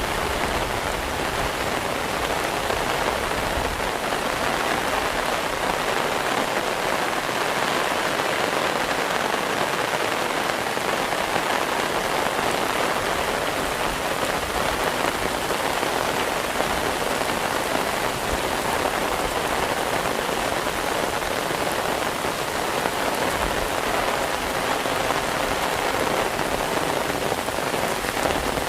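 Steady heavy rain falling and splashing on surfaces, a dense even hiss without pause.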